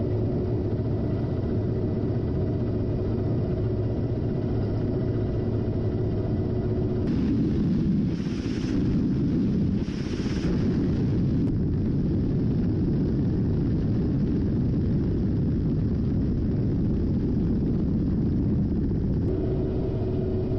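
Ka-52 attack helicopter's engines and coaxial rotors running in flight, heard from inside the cockpit as a loud steady drone with a whine. The sound changes abruptly about seven seconds in, and two short hissing rushes follow, about eight and ten seconds in.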